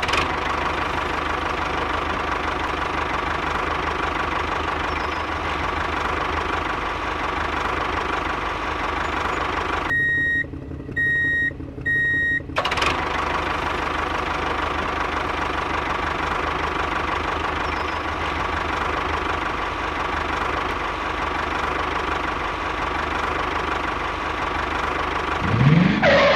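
Small motor of a homemade mini tractor or thresher running steadily with a constant whir. Partway through it cuts out, and three short, evenly spaced high beeps sound before the motor noise returns.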